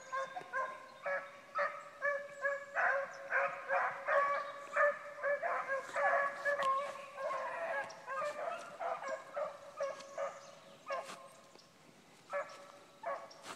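Pack of beagle hounds baying on a rabbit's trail: many short, overlapping bawls and chops in chorus. The cry thins out about eleven seconds in, then picks up again briefly near the end.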